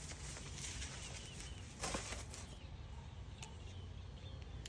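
Faint outdoor background with a low steady rumble and a few distant bird chirps, broken by one short knock about two seconds in.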